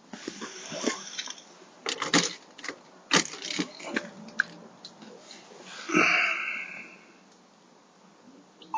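Scattered clicks and knocks of handling, with a brief rustle about six seconds in that fades within a second.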